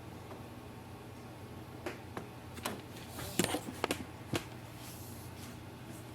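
A run of light, sharp clicks from operating a laptop, about eight of them bunched together in the middle, over a faint steady low hum.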